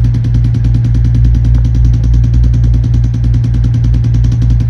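A chiropractic adjusting instrument tapping rapidly and evenly on the joints of the spine, a steady machine-like buzz of many small taps a second over a low hum.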